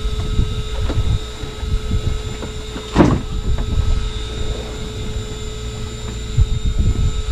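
Background noise on a fishing boat at sea: a low gusty rumble with a steady machine hum running under it. There is one sharp knock about three seconds in.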